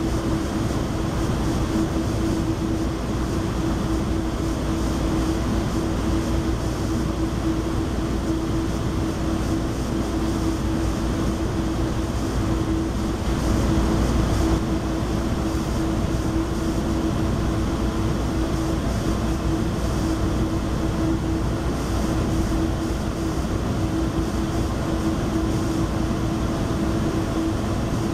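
Steady interior rumble and hum of a Metrolink passenger rail coach, with one constant droning tone over the noise.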